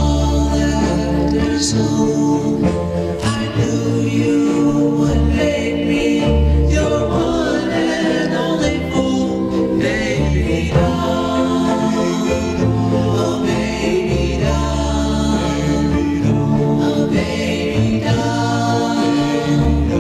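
1962 doo-wop record: a vocal group singing in harmony over a band, with a pulsing bass line.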